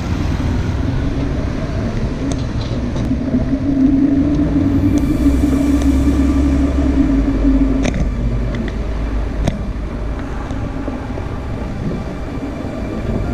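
Steady rumble of wind and road noise while riding a bicycle, with a low droning hum that swells between about three and seven seconds in and then fades.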